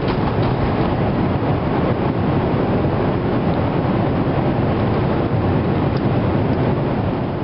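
Boeing 777-200ER cabin noise during takeoff: a loud, steady rush of jet engines and airflow heard from inside the passenger cabin, easing slightly near the end.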